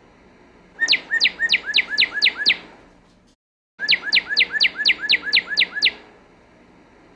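Northern cardinal singing: two phrases of quick, clear down-slurred whistles, about eight or nine notes each at about five a second, with a brief cut to silence between them.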